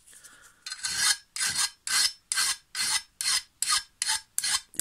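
A flat hand file rasping along the steel edge of a lawn mower blade in quick repeated strokes, about two to three a second, starting just under a second in. The blade is being filed back to a straight edge because it is badly damaged.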